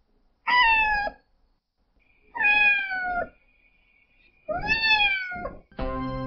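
A cat meowing three times, each meow falling in pitch, the last one longest. Organ music comes in near the end.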